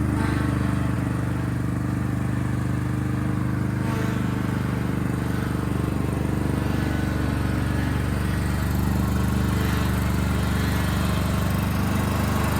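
An engine running steadily at idle, with an even low hum that holds its pitch.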